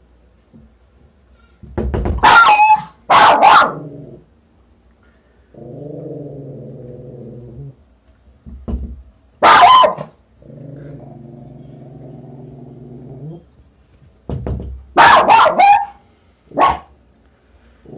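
Small dog barking at a closed door in short loud volleys, three times over. Between the volleys comes a steady low hum, twice, each lasting two to three seconds.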